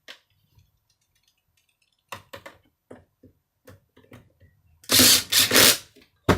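Plastic vacuum cleaner parts being handled and fitted together: scattered light clicks and knocks, then a loud noisy clatter lasting about a second, five seconds in, and a sharp click near the end.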